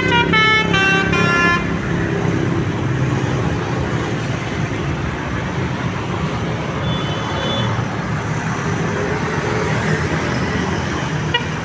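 Basuri telolet multi-tone bus horn playing a short stepping melody for about the first second and a half, followed by the steady rumble of the bus engine and road traffic. A brief faint high tone sounds about seven seconds in.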